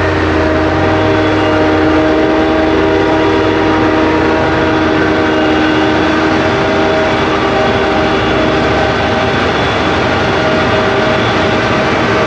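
Heavy maize-harvesting machinery, a forage harvester and tractors, running under load: a loud steady engine drone with several steady whining tones over it.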